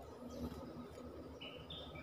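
A bird calling faintly: two short, even whistled notes near the end, the second a little higher than the first, with a fainter high call about half a second in.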